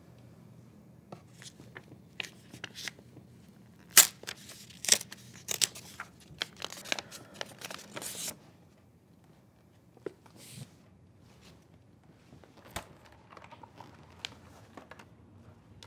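Paper pages being torn out of a book, a quick series of rips that is loudest from about four to eight seconds in, followed by a few light clicks and rustles.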